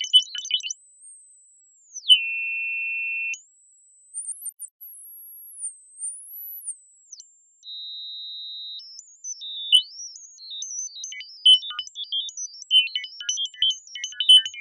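Synthesized R2-D2-style robot beeps and whistles. It opens with rapid chirping chatter. Then come long electronic tones: a high whistle that falls and holds lower, a wavering high glide and a short steady beep. Rapid chattering beeps return about ten seconds in.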